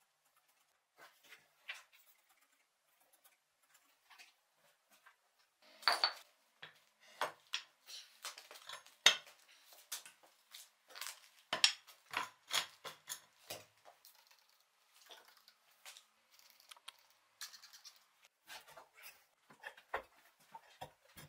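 Irregular metal clinks and knocks from a heavy old leg vise being handled, lifted and set into a wooden stump. The knocks come sparsely at first and cluster thickly through the middle.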